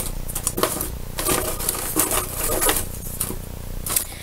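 Small craft items being rummaged through and handled: irregular light clicks, taps and rustles, about one every half second to second.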